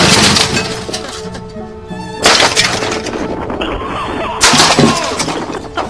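Junk thrown off a roof smashing onto asphalt: three loud crashes with shattering, one at the start, one about two seconds in and one about four and a half seconds in. Background music plays underneath.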